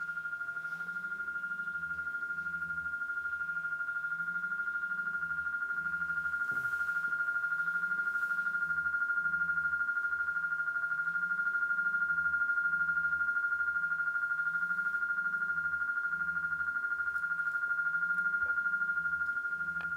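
Laptop electronic music: a steady high electronic tone with a fast flutter, held throughout, over a low wavering pulse that repeats about every two seconds.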